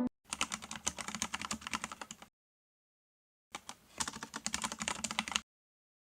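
Rapid keyboard typing in two bursts of about two seconds each, separated by a second or so of dead silence.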